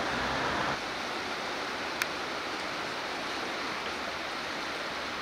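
Steady rushing of flowing river water, a little louder for the first moment before settling, with a single sharp click about two seconds in.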